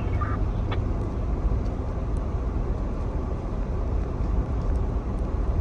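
Steady low rumble of vehicles in slow-moving traffic, with a single short click about three-quarters of a second in.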